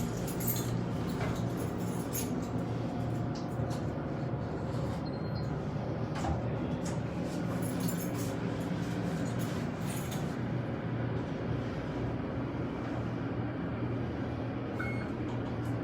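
Elevator car running on its way down, a steady low hum and rumble with a few faint clicks.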